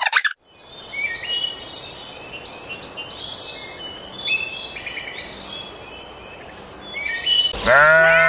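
Birds chirping and singing in short, varied notes, some gliding downward, over a faint hiss. Near the end comes a loud bleat, as of a sheep or goat.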